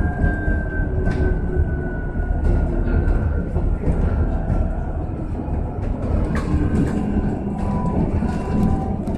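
Electric bus riding, heard from inside: a traction-motor whine that slowly falls in pitch, with a new whine coming in about six seconds in, over a steady low road rumble and scattered rattles and clicks.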